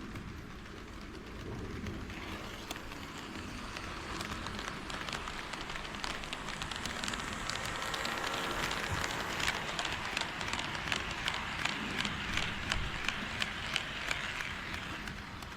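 HO scale model train running past on KATO Unitrack: a wheel-and-motor rumble that grows as it comes nearer, with regular clicks from the rail joints at about two a second when it is loudest, then fades near the end.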